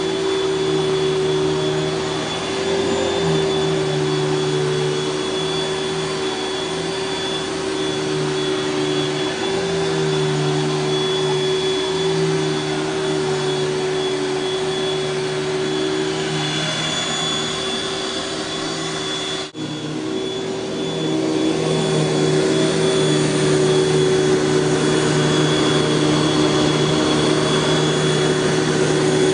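Panasonic Jet-Flo MC-6210 upright vacuum cleaner running steadily: a motor hum with a thin high whine over the rush of air. About two-thirds through there is a split-second break, and after it the vacuum runs a little louder.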